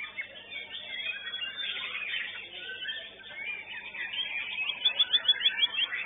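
White-rumped shamas (murai batu) singing, several birds' songs overlapping in a dense tangle of whistles and chirps. About five seconds in, one bird cuts in with a fast run of about seven loud, sharp repeated notes.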